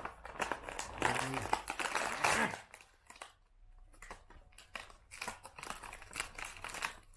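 Clear plastic blister packaging of an action figure crinkling and crackling as it is handled and pulled open, in quick irregular crackles.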